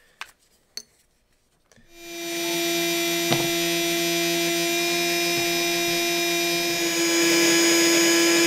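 Battery-powered Original Barrel Cooler fan blowing air through a rifle barrel: it starts about two seconds in and then runs with a steady whine, with one light click partway through.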